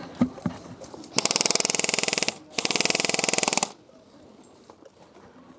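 Airsoft electric gun firing on full auto: two bursts of rapid shots, each about a second long, with a short pause between them.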